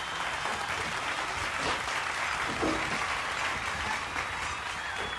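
A litter of puppies suckling at their mother's teats, a dense wet smacking and clicking that goes on without a break.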